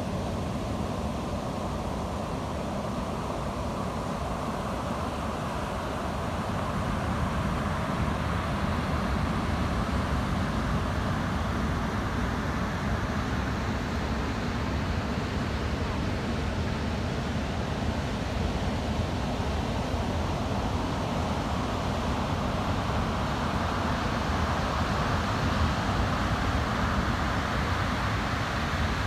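Steady roar of heavy ocean surf breaking on the beach, growing a little louder about seven seconds in.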